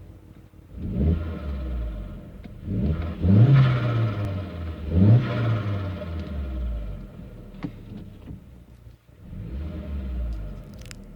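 2002 VW Beetle Turbo's 1.8-litre turbocharged four-cylinder (1.8T) revved in several short blips, each rising quickly and falling back, with turbo flutter as the throttle closes.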